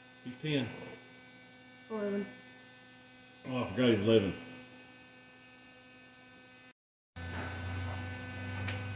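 Steady electrical mains hum, with a few short bursts of voices in the first half. About seven seconds in, all sound cuts out for a moment, then the hum comes back with a stronger low note.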